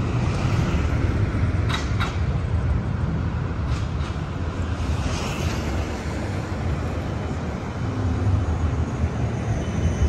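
A Siemens Combino tram approaching along street track and running past close by, its wheels and running gear rumbling steadily on the rails. A couple of short clicks come about two seconds in.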